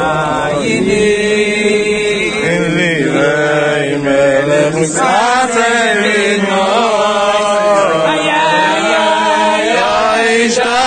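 A man's voice chanting a slow religious melody, holding long notes that bend up and down in pitch without a break.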